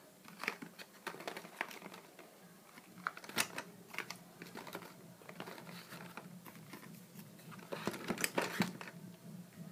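Handling noise: irregular light clicks and taps, thickest about eight seconds in.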